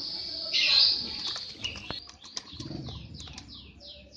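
Lovebird calling while it bathes in a tub of water: shrill chirps, then from about two seconds in a fast run of short falling chirps, about four a second.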